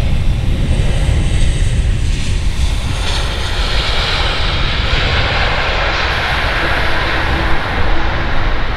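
Boeing 747 freighter's four jet engines rumbling loudly as it rolls down the runway on landing. The high hiss grows stronger from about three seconds in.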